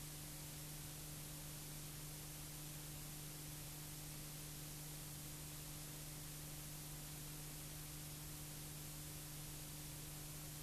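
Steady hiss with a constant low hum underneath: recording or transfer noise with no sound from the scene, typical of a silent cine film transfer.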